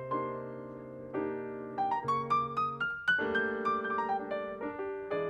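Background piano music: a slow melody of separate ringing notes, with a quick rising run of notes about two seconds in.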